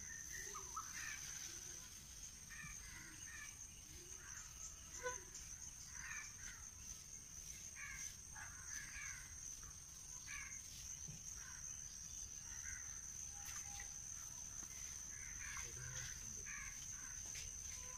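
Crows cawing faintly, short harsh calls repeating every second or so, over a steady high-pitched whine.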